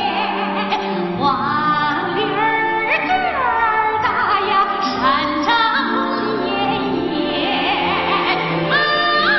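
Recorded Chinese folk-style song: a high singing voice carries sliding, ornamented melody lines over instrumental accompaniment.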